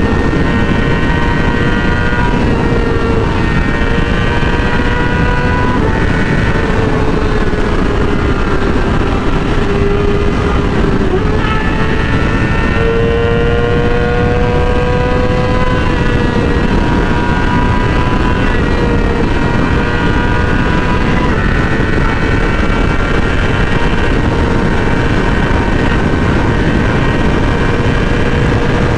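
Yamaha R6 inline-four sport bike engine held at high revs while riding fast, under heavy wind rush on the microphone. The engine pitch sags a little about eight to eleven seconds in, then climbs back.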